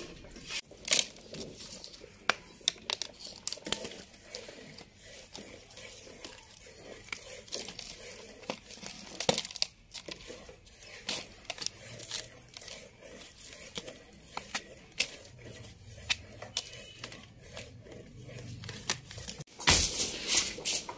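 Malta oranges being peeled by hand, the rind tearing away in a run of short, irregular crackles and snaps.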